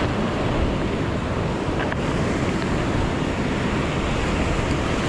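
Sea surf rushing and breaking, with wind buffeting the microphone; a steady noise with no let-up.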